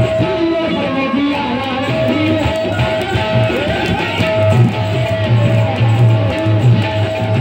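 Instrumental qawwali music: a plucked-string melody over a steady low drum beat.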